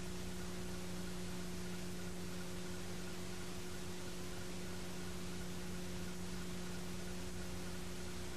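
Steady hiss with a constant low hum and no sound of the game: the noise floor of an old videotape recording.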